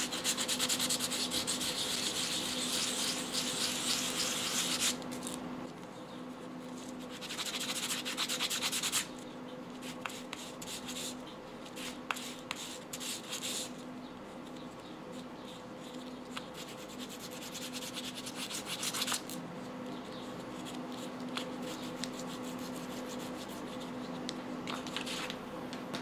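A small plastic clip from a clothes hanger being rubbed on sandpaper to smooth its sawn edges. The sanding comes in spells: a long one over the first five seconds, another about seven seconds in, then shorter, fainter scrapes and handling. A faint steady hum sits underneath.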